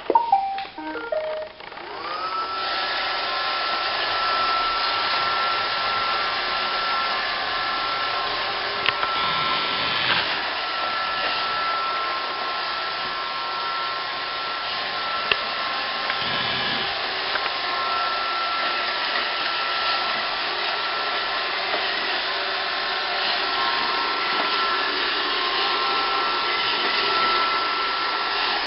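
Roomba robot vacuum starting up and running: after a few short tones, its motor whine rises about two seconds in, then it runs steadily with a whine over a constant rushing noise and a few small clicks.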